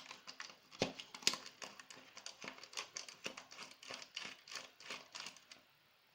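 A small screw being driven into the aluminium enclosure's front panel with a screwdriver: a quick, irregular run of small metallic clicks and scrapes that stops near the end.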